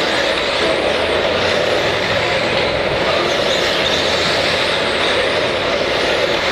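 A pack of electric 13.5-turn brushless stadium trucks racing on a dirt oval, their motors and tyres blending into one steady drone.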